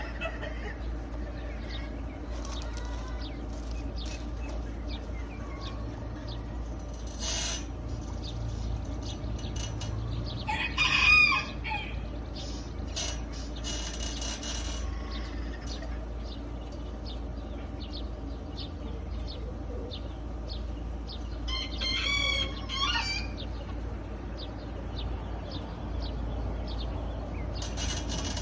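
Rooster crowing twice, about ten seconds in and again about twenty-two seconds in, each crow lasting about a second and a half. Underneath is a steady low hum with scattered short clicks.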